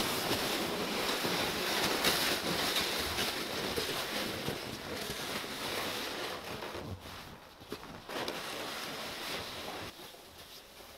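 A sled dragged through deep snow, a steady scraping hiss with crunching footsteps, fading as it is pulled away.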